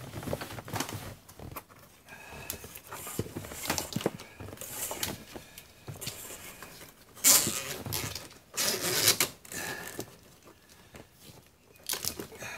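Rustling, scraping and small plastic clicks of electrical cable and its sleeving being threaded through the plastic carpet spacer blocks along a car's door sill, with louder scuffs about seven and nine seconds in.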